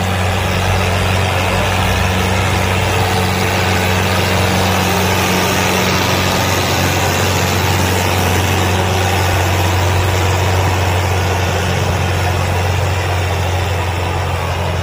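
Fiat 640 tractor's four-cylinder diesel engine running hard at a steady pitch while it drags a disc harrow through the soil. The engine is under heavy load, with black smoke pouring from the exhaust stack.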